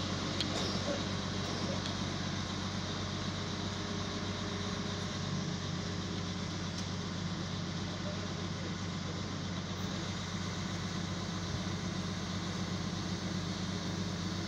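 Crane truck's engine running at a steady speed, driving the hydraulics of the loader crane that is lifting the machine.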